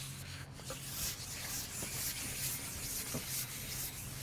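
Carbon fishing pole being slid out over its rest and through the hands, a steady rubbing hiss.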